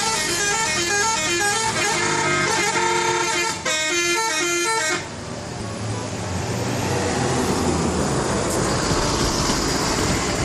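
A bus's 'telolet' multi-tone air horn playing a quick stepping tune of several notes. It stops about five seconds in, leaving the rumble and road noise of a vehicle.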